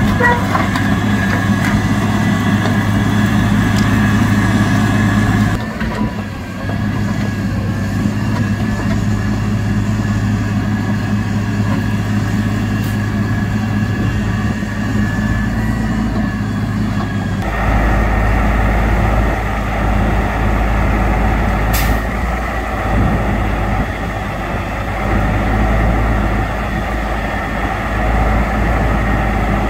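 Diesel engine of a heavy grapple-loader truck running steadily while its knuckle-boom crane loads debris. The engine note changes twice, and a single sharp click sounds about two-thirds of the way in.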